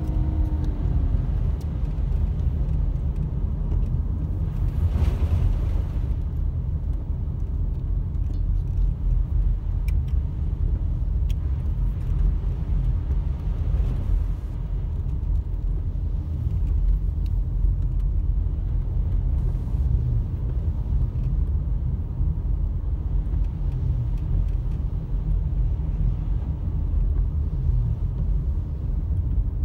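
Steady low rumble of a car driving, heard from inside the cabin: engine and tyres on a wet road.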